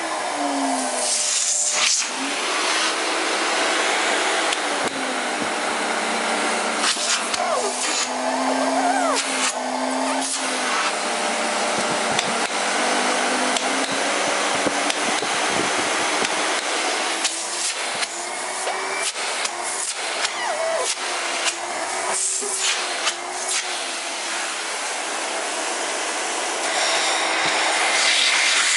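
Miele Silverstar S280i canister vacuum cleaner (1200 W) running steadily. The motor's pitch shifts down and back up several times as its power setting is changed, and short clicks from handling and button presses come in here and there.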